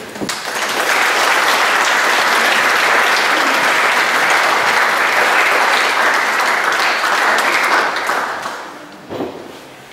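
An audience applauding: it builds within the first second, holds steady, and dies away about eight to nine seconds in.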